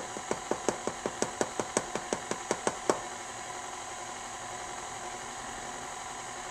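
KitchenAid stand mixer running, its beater working thick pound cake batter in the steel bowl. A regular clicking, about five a second, rides on the steady motor hum for the first three seconds, then stops and only the motor hum goes on.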